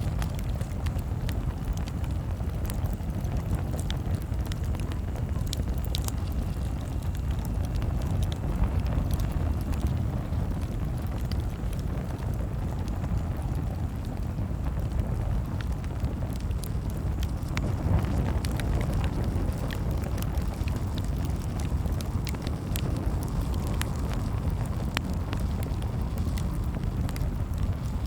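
Campfire crackling: scattered sharp snaps and pops over a steady low rumble.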